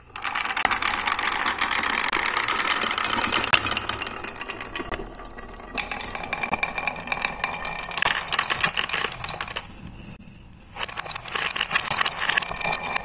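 A stream of marbles rolling and clattering down a wooden marble run, rattling past wooden pegs and clicking against each other and the walls of zigzag grooves cut in wooden blocks. The clatter drops away briefly about ten seconds in, then picks up again.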